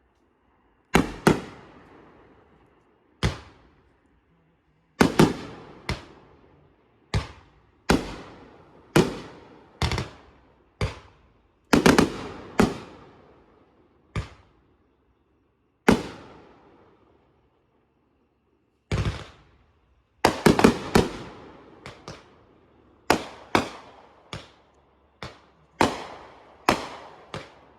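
Fireworks going off: sharp bangs at irregular intervals, some single and some in quick pairs or dense clusters, each trailing off in a long echo.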